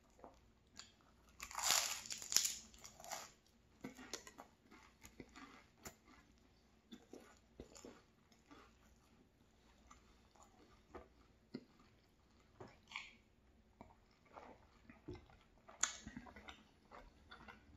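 A person bites into a flaky chocolate puff pastry and chews it close to the microphone. There is a loud crackly bite about two seconds in, then quieter chewing with small crackles, and another crunchy bite near the end.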